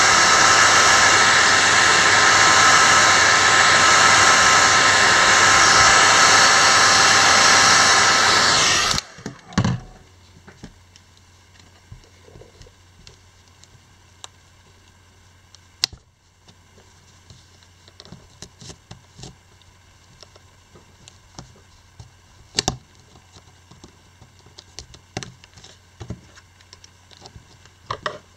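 Hair dryer blowing hot air onto a smartphone's battery to soften its adhesive, running steadily and loudly, then switched off about nine seconds in. After it, faint clicks and taps of a plastic prying pick working under the battery's edge.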